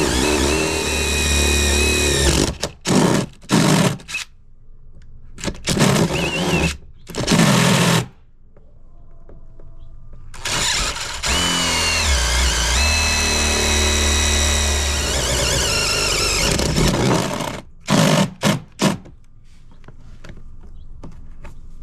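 Power drill cutting the holes for an ATV's USB and cigarette-lighter sockets, run in long pulls and short bursts of the trigger, its motor whine dipping in pitch under load.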